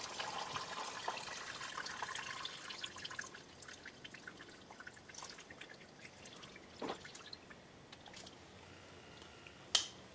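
Old gasoline trickling out of a scooter's fuel hose as the tank is drained through its vacuum-operated petcock. The trickle thins to scattered drips after about three seconds. There is a light knock past the middle and a sharp click near the end.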